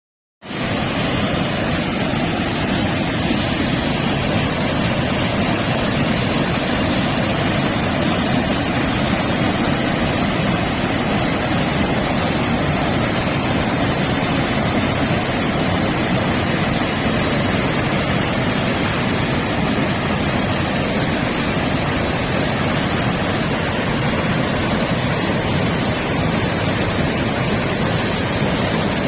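Waterfall: falling water rushing steadily, a dense unbroken wash of noise with no other events.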